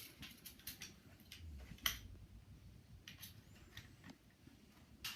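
Faint, scattered small clicks and taps of metal shotgun parts being handled during reassembly, with one sharper click about two seconds in.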